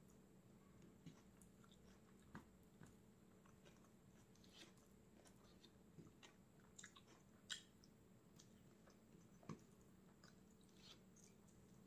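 Faint chewing and eating mouth sounds: irregular soft clicks and small crackles, with two sharper ones a little past the middle.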